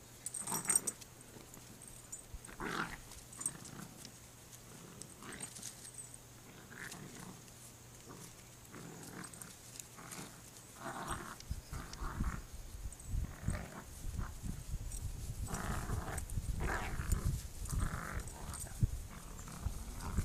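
Two dogs growling in play as they tug at a plush toy, a tan dog and a black-and-white puppy, with much of the noise coming from the puppy. The short growls come in irregular bursts, busier and louder in the second half.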